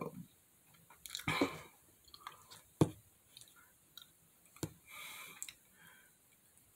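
Quiet mouth sounds close to the microphone: a few sharp lip smacks or tongue clicks, spaced a second or two apart, with soft breath.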